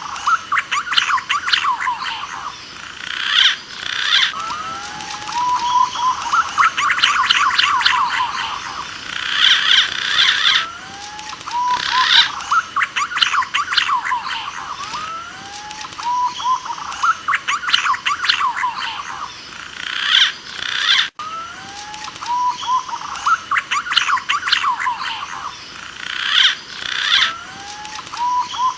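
Green pigeon (punai) calls played as a hunting lure: a repeating phrase of rising whistles followed by a fast run of higher warbling notes, coming round every four seconds or so. The sound cuts out for an instant late on.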